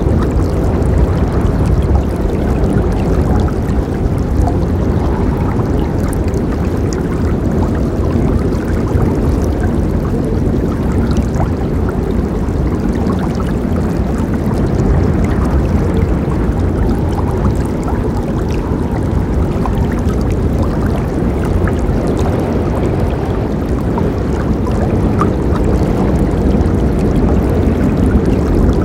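River water flowing steadily, a continuous deep rush with small splashes and drips scattered through it.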